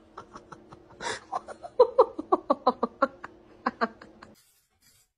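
Quick, rhythmic ha-ha-ha laughter in a run of short pulses that stops suddenly about four seconds in.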